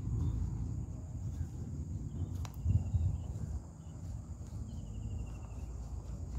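Outdoor ambience: a steady high-pitched insect drone, with two short trills about two and five seconds in. Under it, low rumble from wind and handling on the phone's microphone, and a sharp click about two and a half seconds in.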